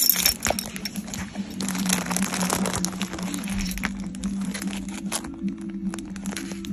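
Clear plastic packaging on packs of braiding hair crinkling and crackling as they are handled, a run of many small crackles.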